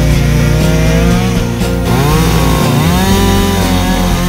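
Echo CS-620P two-stroke chainsaw running at high revs, its engine pitch dipping and climbing back twice in the second half.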